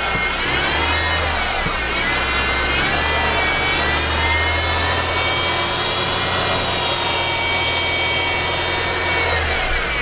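2013 Mercedes C250's 1.8-litre turbocharged four-cylinder engine revved twice: a short rise and fall, then a longer rev held high before dropping near the end. A high-pitched whine, "like a dental machine", rises and falls with engine speed. It sounds like a failing power steering pump but comes from a bad belt idler pulley.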